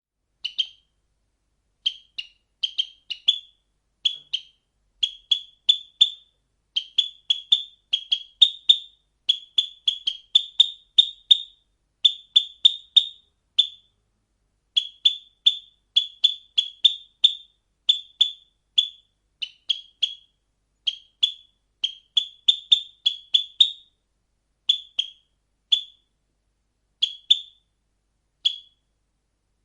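Sparrow chirping: a long series of short, high cheeps, often in quick runs of two to four, with brief pauses between runs.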